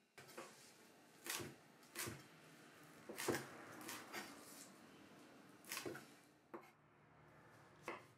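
A chef's knife chopping fresh coriander on a bamboo cutting board: about ten quiet, unevenly spaced knife strikes against the wood.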